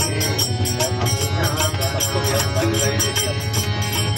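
Live harmonium and tabla playing a bhajan: the harmonium holds steady reedy chords under regular tabla strokes, with a voice singing the melody.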